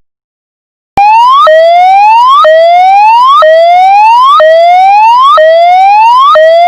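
Electronic alarm siren sound effect: a whooping tone that sweeps up in pitch, snaps back down and repeats about once a second, starting after about a second of silence.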